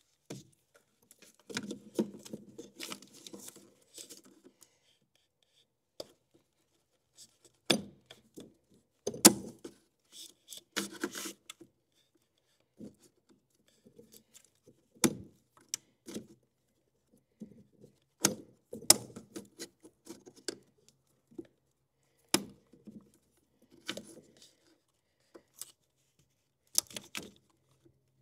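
Hands working plastic wiring-harness and fuel-injector electrical connectors loose on a Toyota 4.7 V8: irregular clicks, taps and small rattles in scattered bursts with quiet between them, the sharpest about nine seconds in.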